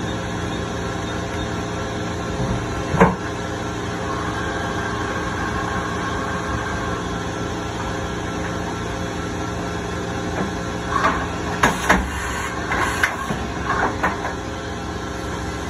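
Okuma MC-V4020 vertical machining center running with a steady hum. There is a sharp clack about three seconds in. Near the end comes a quick run of clunks and clicks as the automatic tool changer swaps the tool in the spindle.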